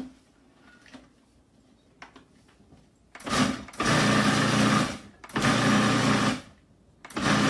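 Food processor pulsed in three short bursts of about a second each, its motor running and blade chopping a load of fresh herbs. A few faint clicks come before the first burst.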